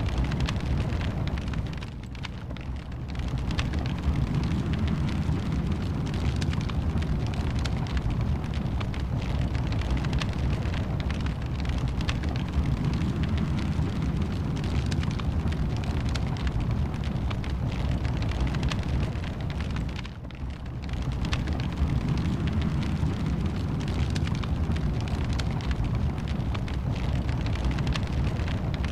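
Wood fire burning in a fireplace: a steady low rumble of flames with frequent sharp crackles and pops. It eases off briefly twice, about two seconds in and again past the twenty-second mark.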